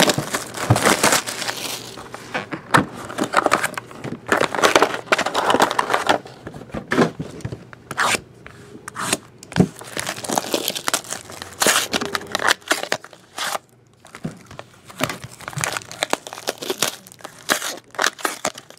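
Clear plastic shrink wrap crinkling and tearing as it is pulled off a sealed box of trading cards, in irregular crackling, rustling handfuls. Near the end a card pack wrapper is torn open.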